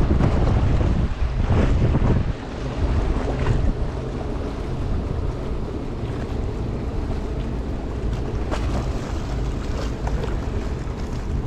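Wind buffeting the microphone over small waves washing against rocks, heaviest in the first two seconds and then steadier.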